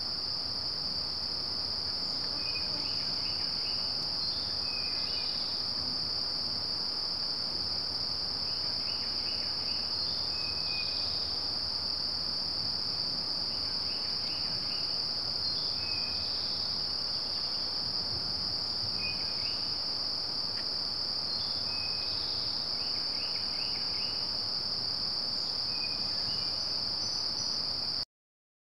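Steady high-pitched drone of a summer insect chorus, with short groups of chirps repeating every few seconds. It cuts off suddenly near the end.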